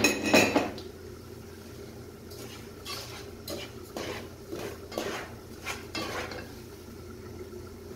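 Wooden spoon stirring sugar into semolina halwa in a non-stick pot. A clatter as it starts, then a run of scraping strokes about two a second that stops about six seconds in.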